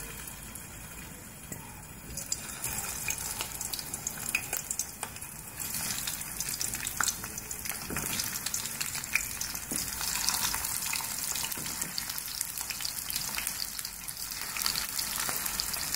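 Stuffed bitter gourds frying in hot oil in a shallow pan: a steady sizzle with many small crackling pops. It gets louder about two seconds in and again a few seconds later, as more gourds go into the oil.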